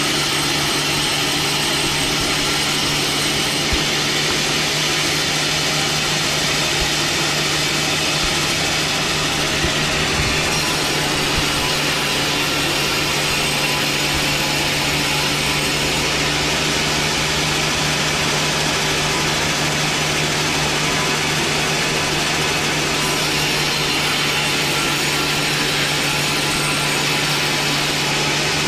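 Power saw running steadily and cutting through wood, a continuous dense noise over a constant motor hum.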